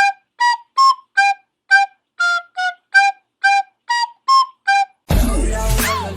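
A tune of about a dozen short, separate flute-like whistled notes, each cut off cleanly, with the pitch stepping up and down between them. About five seconds in, full music with a beat starts.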